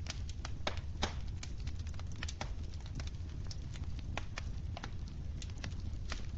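Wood fire crackling in a fireplace: irregular sharp pops and snaps, a few each second, over a steady low rumble.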